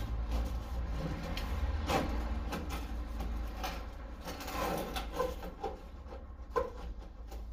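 Old hand cutters biting through the rusted sheet steel of a Mk2 Ford Escort front wing, giving short crunches and clicks in a few irregular bursts. The metal is so rotten that worn cutters go through it. A steady low hum runs underneath.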